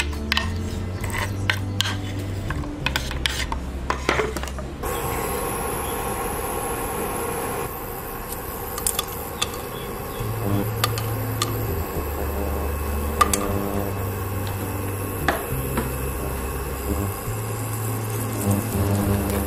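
Sharp, irregular clicks of green chillies being cut and dropped into a bowl for the first five seconds. Then whole spices (bay leaves, black pepper, cinnamon, cardamom) sizzle in hot oil in a pot: a steady hiss with occasional sharp pops.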